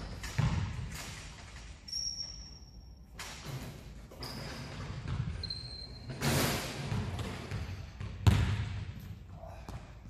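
Basketball bouncing on a hardwood gym floor: several separate thuds that ring out in the large hall, the loudest near the end, with a few short high squeaks between them.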